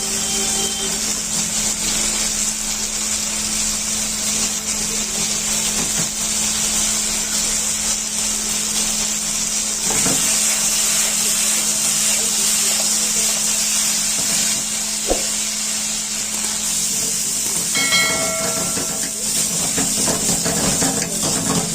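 Steady loud hiss of a street vendor's wok of chicken chili cooking over a high gas flame, with a steady low hum underneath and an occasional knock of the utensils.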